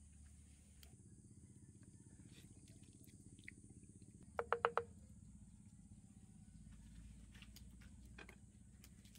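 Four quick taps in a row, about a tenth of a second apart, from a wooden spoon knocked against the rim of a cast-iron skillet. A faint low steady background runs underneath.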